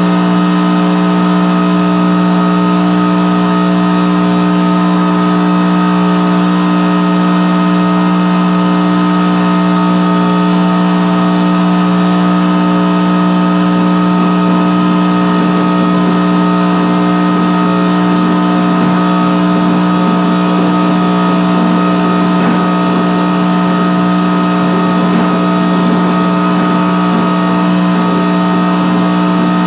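Loud, steady electronic noise drone: a low hum with several held tones stacked above it over a bed of hiss, unchanging throughout.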